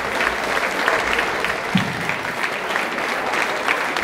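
Audience applauding, dense steady clapping from many hands.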